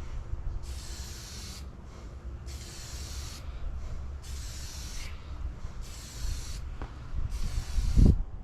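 Five regular bursts of spray hiss, each about a second long and cutting off sharply, over a low rumble, with a loud thump near the end.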